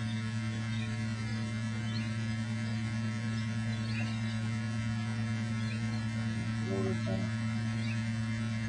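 A steady low electrical hum, with a few faint short high chirps above it.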